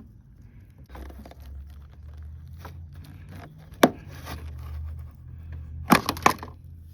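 A small screwdriver working a brittle plastic retaining clip on a car's radiator fan shroud. There is light scraping, a sharp click just before the middle, and a quick run of clicks near the end.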